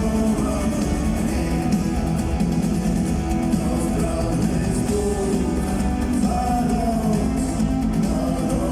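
A rock band playing live, with a sung vocal line over the band.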